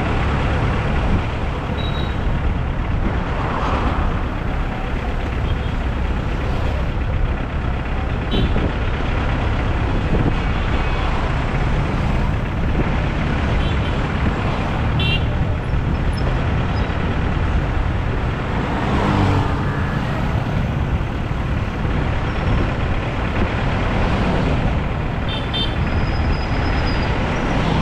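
Vehicle driving through city traffic: a steady engine and road rumble, with a few brief high-pitched toots scattered through it.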